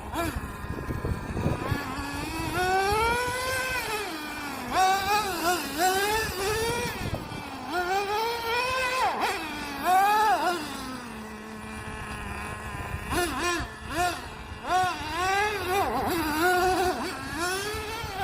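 Traxxas T-Maxx's 2.5 nitro engine revving up and down over and over with quick throttle blips. It drops back to a steady idle for a couple of seconds about halfway through, then revs again.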